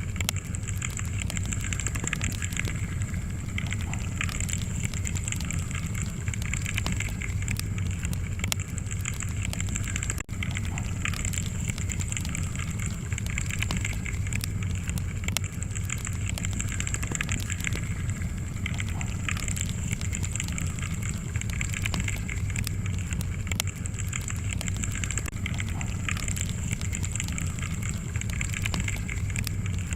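Wood fire in a fireplace crackling steadily, with frequent small pops and snaps over a low rumble of flame.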